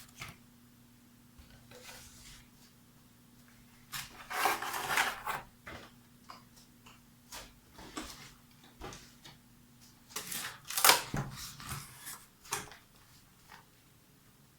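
Packaging of a boxed graphics card being handled as the card is unpacked: scattered clicks and short rustles, with two louder bursts of rustling about four and ten seconds in. A faint steady hum runs underneath and stops about ten seconds in.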